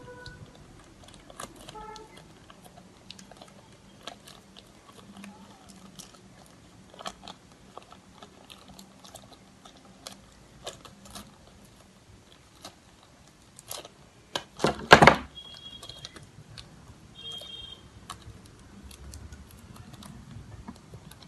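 Thin polythene bag crinkling and crackling as it is wrapped and twisted tightly around a small ball by hand, in scattered crackles with a louder, denser burst of crinkling about two-thirds of the way through.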